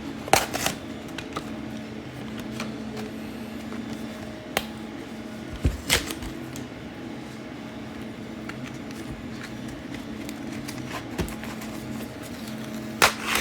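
Multitool packaging being handled and pried at, with a few sharp clicks and knocks scattered over a steady low hum, as the hard-to-open pack resists.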